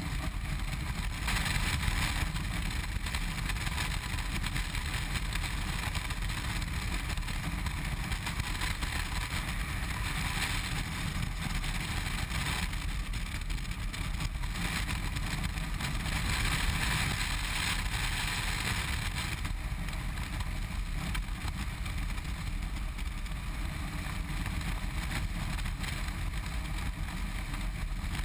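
Steady wind rush over the microphone of a BMW R1200RT touring motorcycle cruising at motorway speed, with the drone of its flat-twin engine underneath. The wind noise swells for a few stretches.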